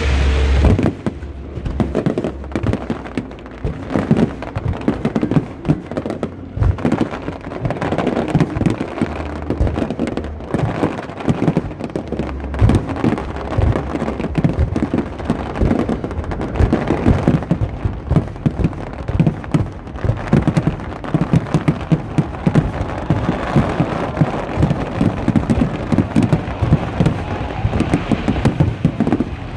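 Aerial fireworks display: a dense, unbroken barrage of shell bursts, with crackling between the bangs and several heavy booms, the deepest about a second in and around ten and twelve seconds in.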